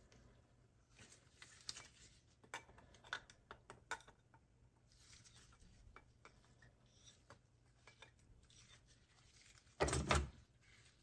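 Faint clicks and taps of an adjustable wrench working loose the bowl nut on a small-engine carburetor, with one louder knock near the end as the parts are handled.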